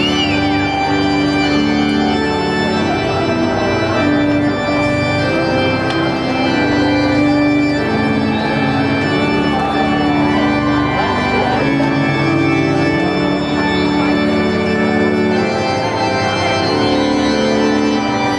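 Organ playing slow processional music in long, sustained chords that change every second or two.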